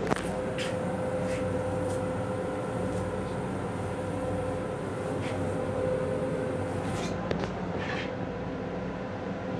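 Interior noise of a Metro-North M7 railcar heard from inside its restroom: a steady rumble with a constant hum and a few scattered light clicks and rattles.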